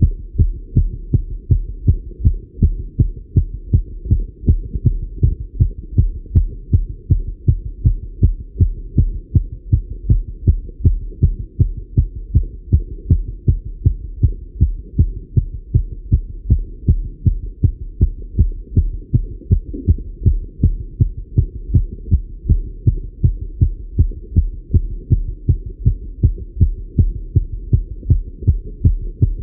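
A man's heart beating fast and evenly, heard through a Littmann stethoscope on the chest, the rate raised by cycling.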